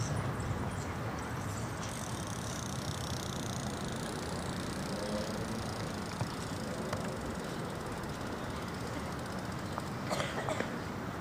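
Steady outdoor street ambience: a low, even rumble of distant traffic, with a few faint clicks near the end.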